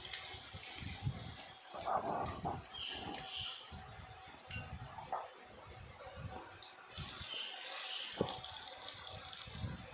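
Marinated seer fish steaks sizzling in hot oil on a non-stick tawa as they are laid in one by one. The sizzle jumps up as a piece goes in at the start and again about seven seconds in.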